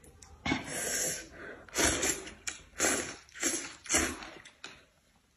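A person slurping hot and sour noodles from a bowl: a series of about five quick, hissing slurps.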